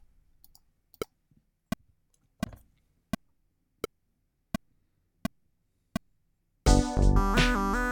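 Pro Tools metronome click counting in, eight short clicks about 0.7 s apart. About six and a half seconds in, the playback of the recorded Xpand 2 tracks starts loudly: a synthesized drum beat with electric piano and synth bass.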